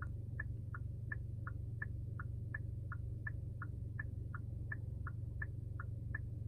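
Hyundai Sonata DN8 turn-signal indicator clicking in an even tick-tock, about three clicks a second, alternating between two slightly different pitches. Under it runs a steady low hum inside the car's cabin.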